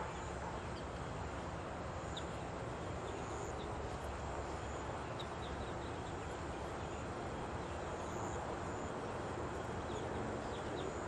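Steady outdoor background noise, a low rumble and hiss, with a faint high insect drone and a few faint, short bird chirps scattered through it.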